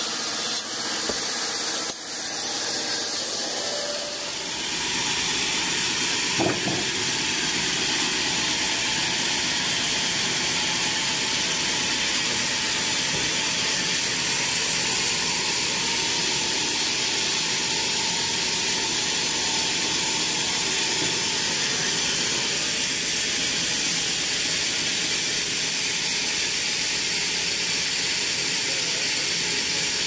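Sawmill running with a steady hissing noise. For the first few seconds the saw is cutting through a teak timber; after that the machine keeps running unloaded while a crooked teak log is set on the carriage. A single short knock comes about six seconds in.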